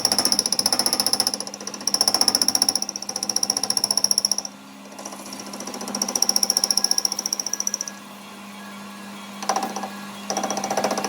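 A machine rattling rapidly in runs of about two seconds, stopping and starting several times, over a steady hum.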